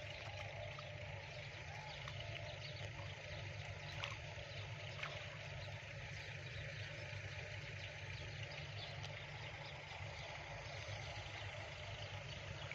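Water sloshing and splashing as a man wades through a shallow canal and gropes through the water by hand for tilapia, over a steady low hum.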